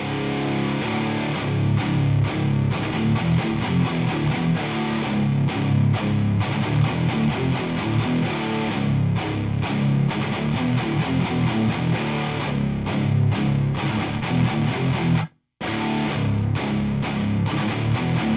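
Heavily distorted electric guitar playing chugging hardcore riffs through a 100-watt Marshall amp head. The playing stops dead for a split second about three-quarters of the way through, then starts again.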